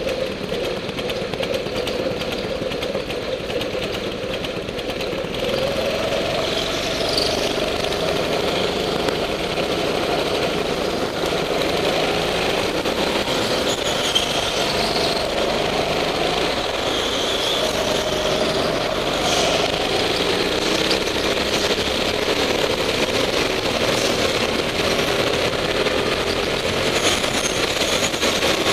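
Go-kart engine running hard around the track, its pitch rising and falling with the throttle, with other karts' engines close by and brief high squeals now and then.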